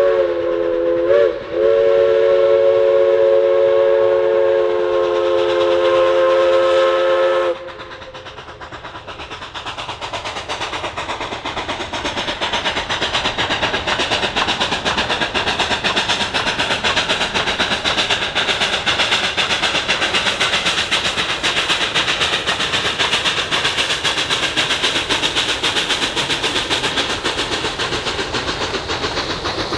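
Narrow-gauge steam locomotive's chime whistle blowing a long blast of several notes at once for a road crossing, wavering briefly about a second in and cutting off sharply after about seven and a half seconds. Then the locomotive's rapid exhaust beats and the clatter of the passing coaches build up and carry on.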